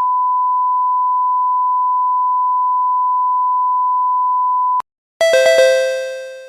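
A steady pure beep at one pitch, like a censor bleep or test tone, held for about five seconds and cut off. After a short pause comes a quick run of bright, bell-like chime notes that ring out and fade.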